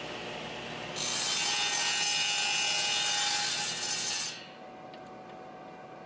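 Table saw running, its blade cutting through a board from about a second in until about four seconds in; then the sound drops back to a quieter steady hum.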